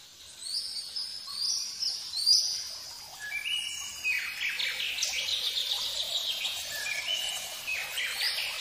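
Songbirds singing: repeated short, high chirping phrases that step up and down in pitch, with a faster run of notes in the middle.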